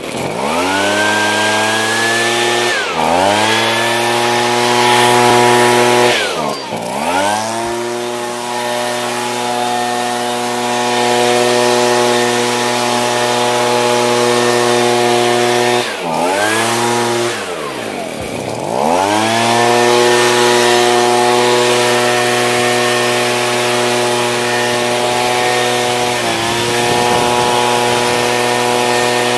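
Handheld gas leaf blower's two-stroke engine running at high throttle and blowing air. Its revs drop and climb back up four times as the throttle is let off and squeezed again, with a short wobble near the end.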